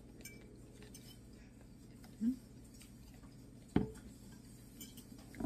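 Metal fork clinking and scraping against a ceramic plate while salad is scooped up. The loudest is a single sharp clink a little under four seconds in, with a few lighter taps near the end and a brief low rising hum about two seconds in.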